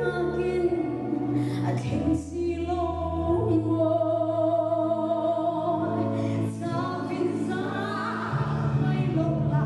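A woman sings a gospel song solo through a microphone over a backing accompaniment of held low chords. The chords change a few times.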